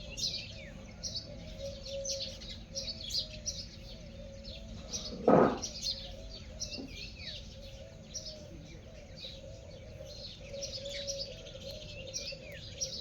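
Birds chirping continuously, with many quick high calls over a low wavering call, and one short loud sound about five seconds in.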